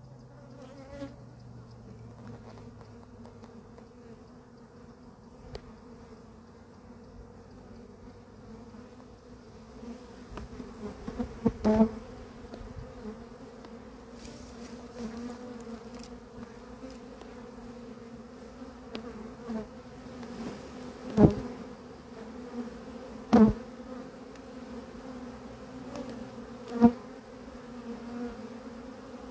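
A honeybee swarm buzzing steadily and close by, a deep hum with a higher tone above it, the bees stirred up as they are scooped off the tree trunk into a hive box. A quick cluster of sharp knocks comes about a third of the way in, and three more single knocks come in the last third.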